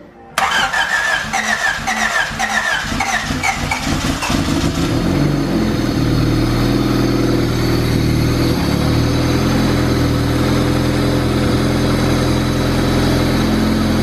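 A freshly reassembled, turbocharged Honda Civic wagon four-cylinder engine is cranked by its starter for about five seconds, then fires and settles into a steady idle. It is the engine's first start since the rebuild.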